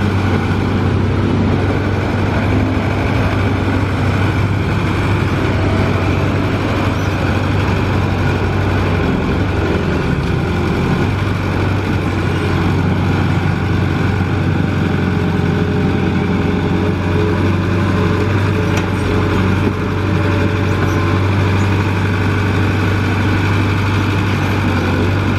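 Diesel engine of a Komatsu PC75UU mini excavator running steadily at working speed, a constant low hum with no marked revving.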